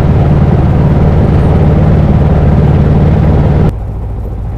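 Light airplane's piston engine running at run-up power during the magneto check, sputtering and running rough from a failed spark plug. About three and a half seconds in, the sound drops suddenly to a quieter, steady engine hum.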